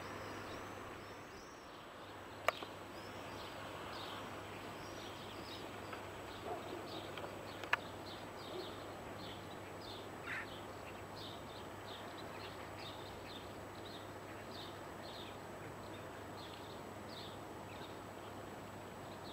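Small birds chirping in many short, high, falling calls over a steady outdoor background, with two sharp clicks.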